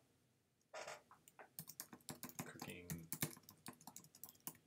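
Rapid typing on a computer keyboard: a quick run of faint keystroke clicks from about a second and a half in, stopping just before the end, after a brief soft noise about a second in.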